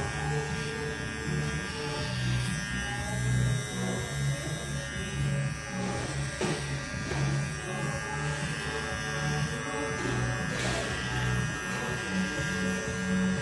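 Corioliss cordless hair trimmer running with a steady electric buzz, over background music.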